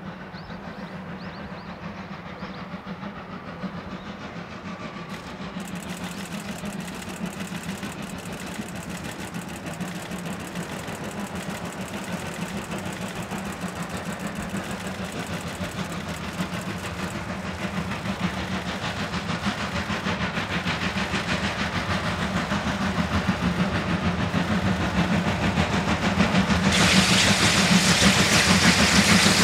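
Steam locomotive D51 200 working as it approaches. Its exhaust beats come fast and grow steadily louder, and a loud burst of steam hiss sets in near the end.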